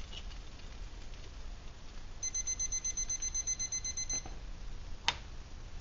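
Digital thermometer-timer alarm beeping: a rapid high-pitched pulsing beep, about six pulses a second, starts about two seconds in and is cut off abruptly after about two seconds. A single click follows about a second later.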